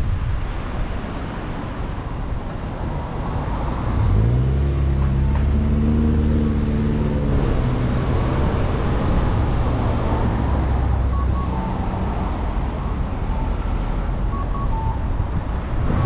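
Car driving in city traffic: steady road and wind rumble. About four seconds in, a vehicle's engine note rises and holds for several seconds before fading. A few faint short beeps come near the end.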